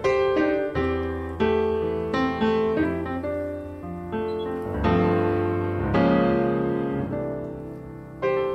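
Background piano music, with notes struck one after another and left to ring.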